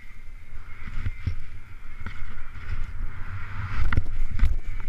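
Skis hissing and scraping through snow at speed, with wind buffeting the camera microphone as a steady low rumble. A few dull knocks, the loudest shortly before the end, as the skis chatter and land on the snow.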